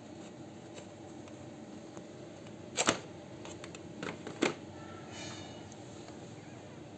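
Sharp clicks and knocks of hard parts being handled while a Lenovo G510 laptop is worked on: a loud double click about three seconds in, two more clicks a second or so later, then a faint brief squeak.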